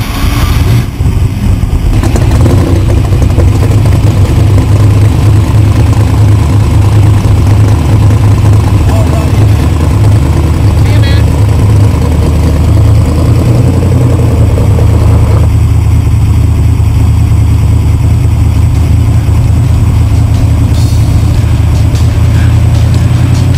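Brand-new 3,000-horsepower drag-car engine, just fired up, running at a loud, steady idle. The fresh engine is being run in so its newly machined parts can bed in together.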